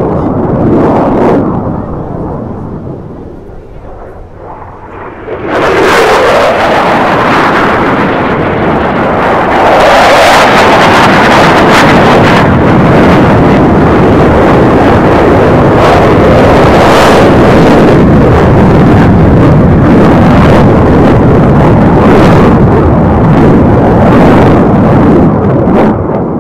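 Loud jet noise from US Air Force Thunderbirds F-16 Fighting Falcons flying past. It eases for a few seconds, comes in suddenly loud about five seconds in, holds at full strength, and falls away right at the end.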